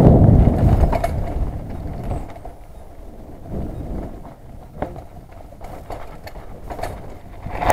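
Mountain bike riding a gravel forest singletrack, heard from a camera on the rider: tyre rumble on the trail and wind buffeting the microphone, with a few sharp knocks and rattles from the bike. Loud at first, it eases off for a few seconds through the slower turns, then swells again near the end.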